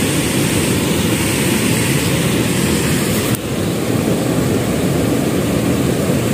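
Wind buffeting the camera's microphone: a steady, loud, low rumbling noise with a brief dip about three and a half seconds in.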